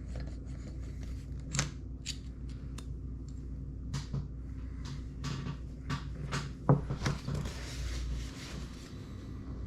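Irregular metal clicks and clinks of rocker arms, bolts and tools being handled and set down while the rockers are taken off a GM 3800 V6 cylinder head, over a steady low hum. The loudest knock comes near the three-quarter mark.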